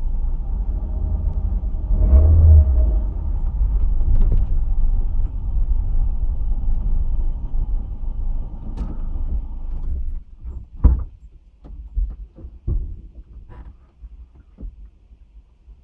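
Ford Fiesta driving, a steady low rumble heard from inside the car. About ten seconds in the rumble stops, followed by a scatter of separate knocks and clicks.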